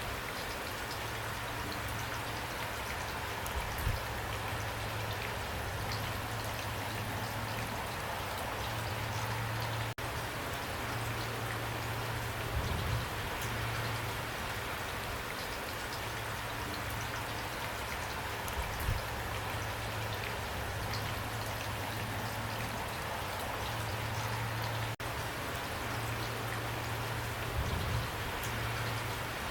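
Heavy, pouring rain falling steadily, with a few short, louder thuds.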